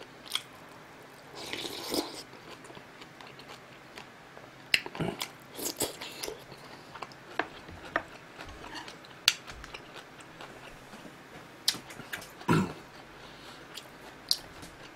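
Close-miked chewing of a mouthful of rib meat from kimchi stew: wet mouth clicks and smacks scattered irregularly, with one louder mouth noise about twelve and a half seconds in.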